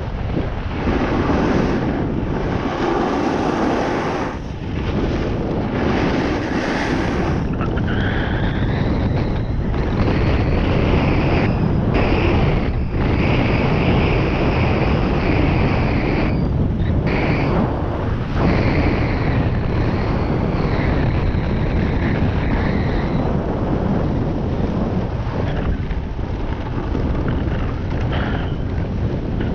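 Wind rushing over the microphone while riding down a ski run, with a steady hiss of edges scraping the snow that grows stronger partway through and eases off again near the end.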